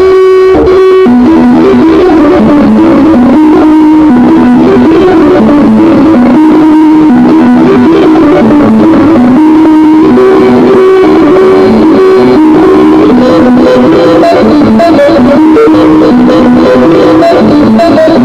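Loud music: a guitar-like melody stepping between notes over a dense background.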